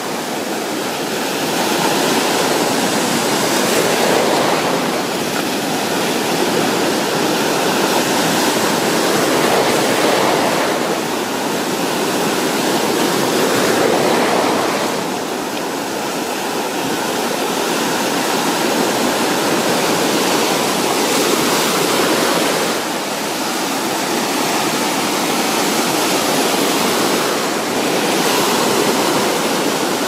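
Rough Black Sea surf breaking at the shoreline and washing up the beach as foam: a continuous loud rush of water that swells and eases every few seconds as each wave breaks.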